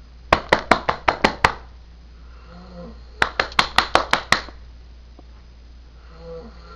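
A man snoring in his sleep, with two quick runs of about seven sharp knocks or taps each, about six a second, cutting in near the start and again in the middle. The knocks are the loudest thing.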